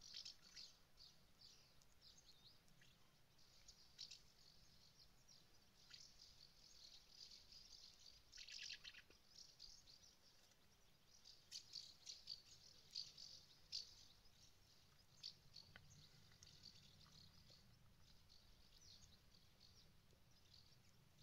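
Faint, scattered chirping calls of a flock of house martins flying overhead, short high notes coming irregularly, a run of them close together past the middle, and one longer buzzier call about eight seconds in.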